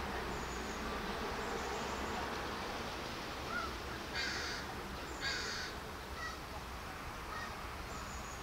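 A crow cawing twice, two harsh calls about a second apart, over a steady outdoor background hiss and rumble.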